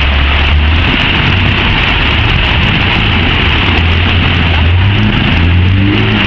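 Land Rover Defender's 300Tdi turbo-diesel engine running hard under load as it ploughs through a deep mud pit, with mud and water churning; the revs rise about five seconds in as it climbs out.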